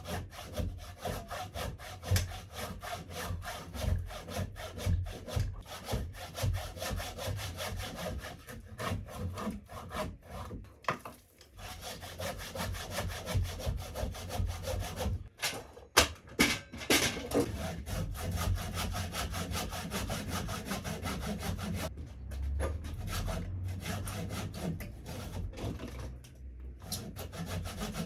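Handsaw cutting through a wooden log with repeated back-and-forth strokes. The strokes pause briefly partway through, with a sharp knock soon after, then carry on steadily.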